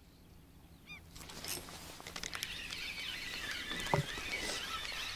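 Waterfowl honking amid other birds calling, the calls building up after about two seconds.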